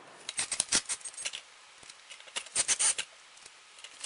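Light clicks and rattles of small Phillips screws and a plastic switch panel being handled and fitted into a plastic car-stereo dash-kit bezel, in two quick runs: one in the first second or so, another about two and a half seconds in.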